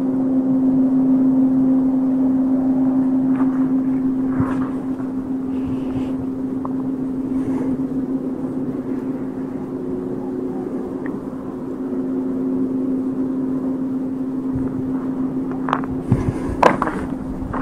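A steady, droning low hum held on one pitch, of the kind recorded and reported as a strange sound in the sky, with a few short knocks near the end.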